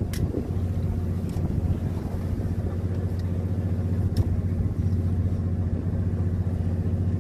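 Fishing boat's engine running steadily: a low, even drone, with a few light clicks over it.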